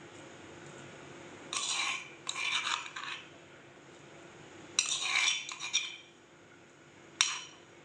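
Steel spoon scraping and stirring in a steel bowl and against a stone mortar, in a few short scraping bursts, with one sharp clink near the end.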